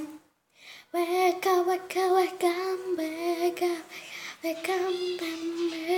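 A girl singing a made-up tune on long, held notes, with a short pause near the middle.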